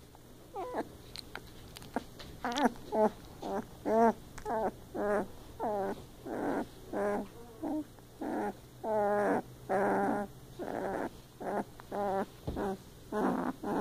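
A 12-day-old puppy whimpering and crying in a long series of short, wavering cries, about two a second, starting about half a second in.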